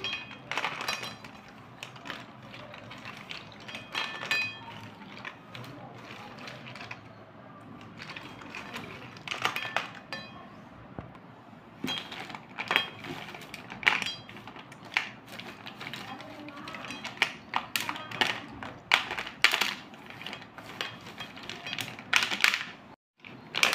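Wet slate pencils clicking and clattering against each other and against a stainless steel plate as a hand stirs them, in irregular sharp clicks. The sound cuts out briefly near the end.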